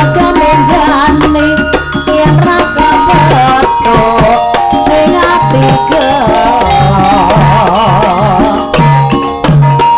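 Live Javanese gamelan music: kendang drums beat a steady pattern under sustained gong-chime tones, and a wavering held melodic line comes in about seven seconds in.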